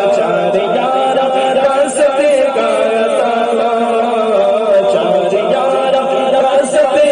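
Male voice singing a naat through a microphone and PA speakers: a long, wordless held note that wavers and bends in pitch.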